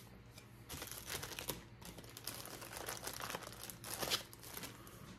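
Packaging crinkling and rustling as it is handled, a dense run of irregular crackles starting about a second in.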